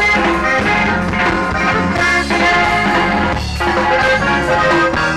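Loud dance music in an instrumental stretch: brass horns play over a steady bass line, with no singing.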